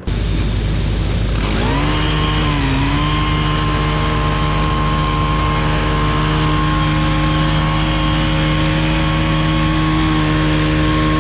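Rush of air blowing out a combine's grain tank to clear leftover soybeans before switching to corn. A motor comes in about a second and a half in, dips briefly in pitch, then runs at a steady hum.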